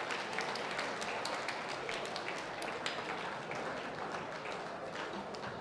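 Crowd applauding, many separate hand claps over a steady wash of clapping, slowly dying down.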